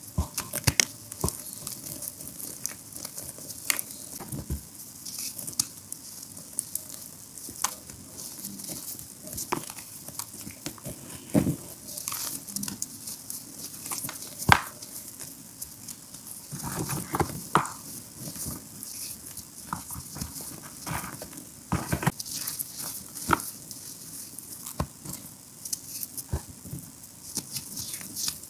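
Bare hands crushing and crumbling chunks of re-formed gym chalk and its powder: a continuous run of irregular crunches and crackles, with sharper snaps here and there.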